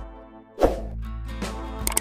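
Background music with a whoosh sound effect about half a second in and a couple of sharp clicks near the end, the sound effects of a subscribe-button animation.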